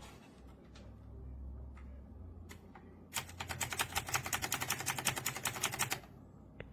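Keys of an AULA F2088 mechanical keyboard with clicky blue switches being typed on: a few scattered keystrokes, then about three seconds of fast, continuous typing starting roughly halfway through.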